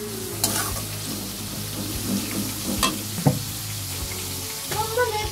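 Food sizzling in a hot pan as it is stirred, with a few sharp knocks, the loudest about three seconds in.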